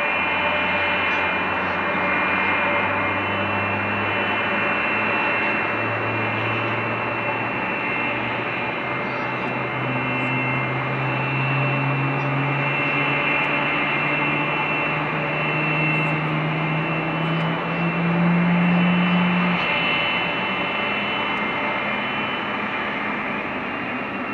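Jet airliner engines at taxi power: a steady rushing whine with high tones over it. A low drone climbs in pitch through the middle, is loudest about three-quarters of the way in, then drops away.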